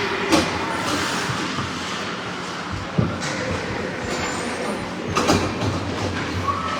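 Ice hockey play in a rink: a steady scraping noise from skates on the ice, broken by three sharp knocks, the first just after the start, the next about three seconds in and the last about five seconds in.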